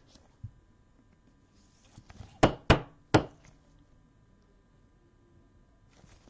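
Three sharp knocks within about a second, as of a stack of trading cards tapped down on a tabletop; otherwise quiet room tone.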